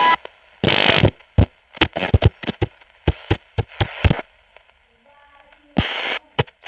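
Radio receiver giving bursts of static hiss and many short sharp crackles as it is tuned between stations. Faint steady whistles sound in a quieter stretch after the middle.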